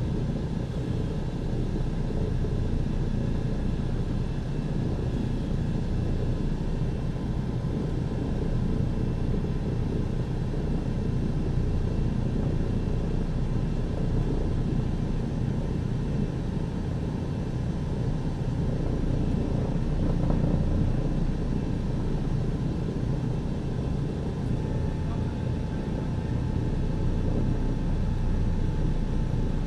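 Douglas DC-3's radial piston engines running steadily, heard from inside the cabin as a constant low rumble, swelling slightly about two-thirds of the way through.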